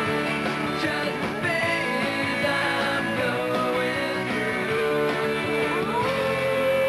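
Rock theme music with guitar, playing over the show's opening titles.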